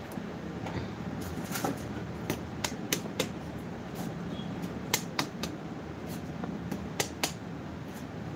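Irregular sharp clicks and taps, a couple of dozen scattered through, over a steady low hum.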